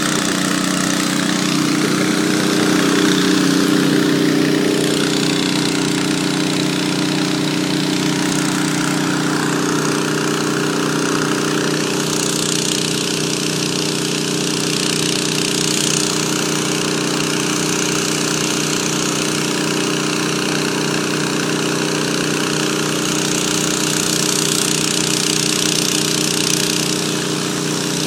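Engine of a slow-moving vehicle running steadily at an even pace. A higher rushing hiss joins it around the middle and again near the end.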